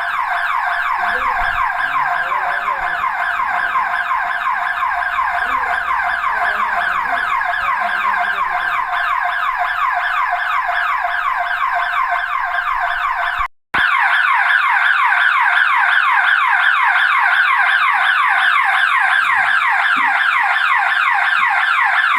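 Electronic alarm siren in a finance company office, sounding loudly and without pause: a rapid, evenly repeating downward sweep, several a second. It cuts out for a moment about 13 seconds in and then carries on.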